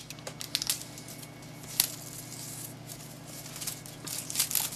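Paper ballot being handled: scattered faint rustles and small clicks, one sharper click about two seconds in and more rustling near the end, over a steady low hum.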